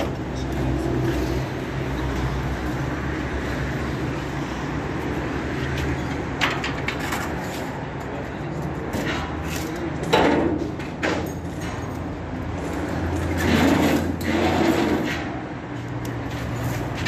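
Sheet-metal roll-forming machine running with a steady low motor hum, with louder noisy surges of metal working about 10 seconds in and again a few seconds later.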